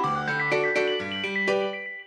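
Background music: a light tune of short, pitched notes over a bass line. The final notes ring and die away near the end.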